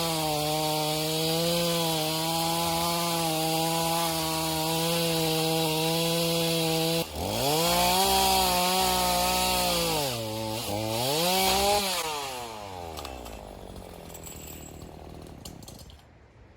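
Craftsman 18-inch chainsaw running at high speed and cutting wood. About halfway through the engine speed rises and swings down and up, then winds down from high revs and fades out near the end.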